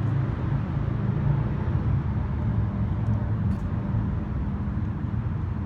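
Steady low rumble of city traffic and vehicle engines, with a couple of faint clicks about three and a half seconds in.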